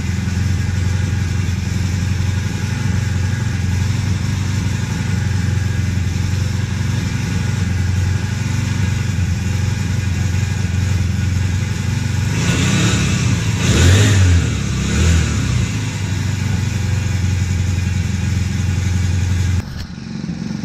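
Small 60cc four-stroke 144F outboard engine (4 HP) running steadily at idle. About twelve seconds in it revs up and back down, with two quick blips. Near the end the engine sound drops suddenly.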